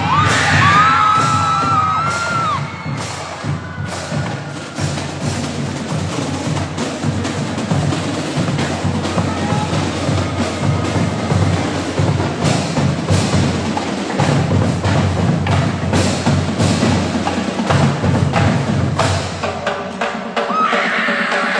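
Marching band drum line playing a fast, steady rhythm: bass drums, snare drums and tenor drums beating together, with sharp stick clicks. A high drawn-out tone sounds over the drums in the first few seconds.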